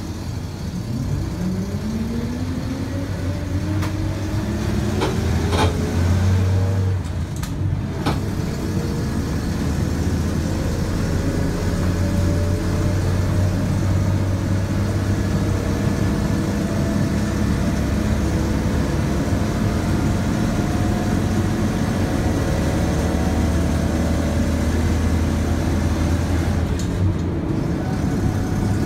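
A 1962 GMC four-wheel-drive panel truck heard from inside the cab as it pulls away: the engine runs with a rising whine over the first few seconds. A few knocks and a gear change come about seven or eight seconds in, then it drives on steadily with a low drone and a slowly rising whine.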